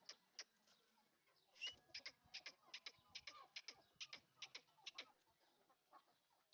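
Faint quick series of short, sharp ticks or peeps from the Aseel chickens, about three to four a second, with one brief chirp a little under two seconds in.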